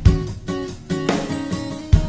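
Background music: strummed guitar with a drum beat.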